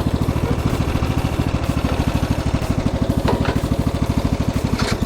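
Pocket bike's small single-cylinder engine running steadily with a fast, even putter. A few light clicks or rattles come about three seconds in and again near the end.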